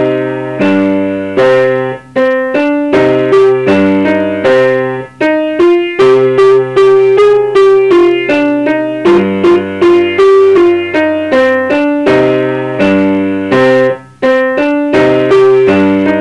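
Piano playing a slow minor-key beginner piece: a right-hand melody of struck, decaying notes over low left-hand notes on C and G fitted in between, with a few short breaks between phrases.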